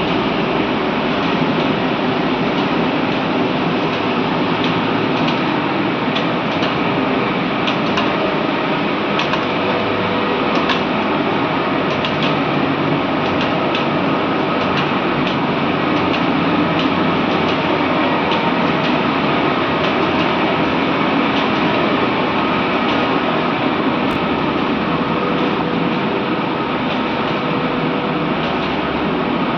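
Steady loud machinery noise of a running 6 TPH steam boiler plant, with a faint steady hum and scattered light clicks throughout.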